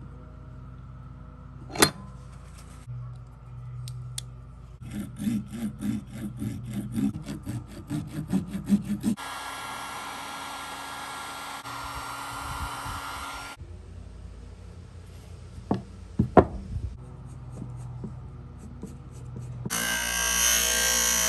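Workshop sounds in sequence. First, quick rhythmic strokes of a hand tool working a PVC pipe spool clamped in a bench vise. Then a heat gun blowing steadily for about four seconds, a few sharp clicks, and near the end a bench grinder grinding metal, the loudest sound.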